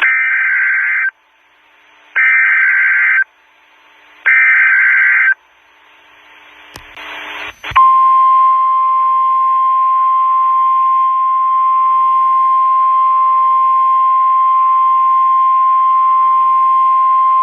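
NOAA Weather Radio emergency alert coming over a radio receiver: three identical one-second bursts of buzzing SAME data header tones, a rising hiss of static, then the steady single-pitch warning alarm tone held for about ten seconds, signalling a snow squall warning.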